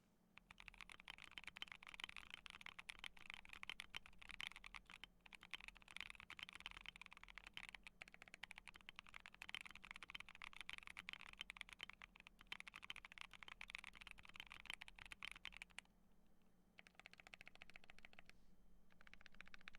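Fast typing on a Tofu65 mechanical keyboard with Gazzew Boba U4T tactile switches: a dense, continuous run of key clacks, broken by two short pauses in the last few seconds.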